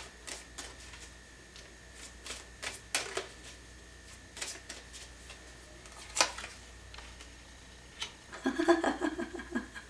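Tarot cards being handled as a clarifier card is drawn from the deck: a scattering of short crisp card snaps and flicks. Near the end comes a denser run of card rustling and tapping as the card is laid down on the cloth-covered table.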